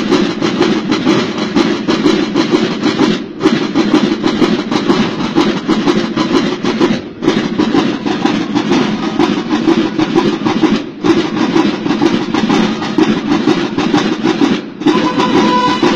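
Marching drums beating a fast, steady cadence, with a short break about every four seconds.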